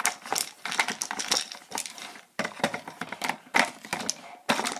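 Hard plastic treat tubes of a dog puzzle toy clattering and rattling on their crossbar as a husky noses and spins them, with treats knocking about inside. A rapid run of clicks and clacks, broken by a short lull a little past two seconds in.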